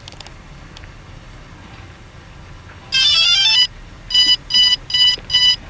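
Electronic beeper: a quick run of tones climbing in pitch, then four short, evenly spaced beeps.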